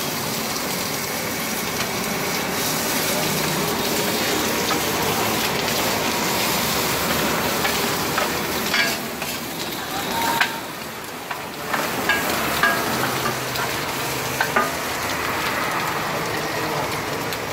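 Egg mixture sizzling as it fries on a large flat griddle, a steady hiss. A metal spatula scrapes and knocks on the griddle plate a few times in the second half.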